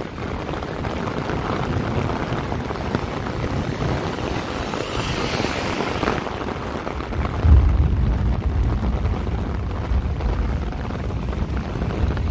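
Wind rumbling on the microphone over steady outdoor noise, the rumble getting louder about seven and a half seconds in. A high hiss swells and fades around five to six seconds in.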